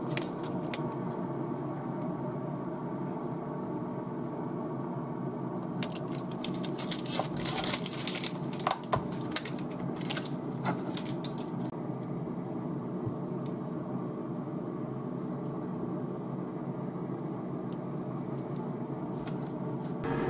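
Clear plastic food pack being handled and opened: a cluster of sharp plastic clicks and crackles from about six to eleven seconds in, with a few single clicks elsewhere, over a steady low hum.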